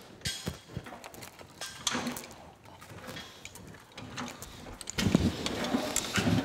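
Metal knocks, clanks and chain rattles as a Monarch 10EE lathe's motor-generator set, hanging from a gantry hoist, is worked loose inside its cast-iron base. About five seconds in, the noise gets louder and busier as the heavy unit shifts and slides out of the base.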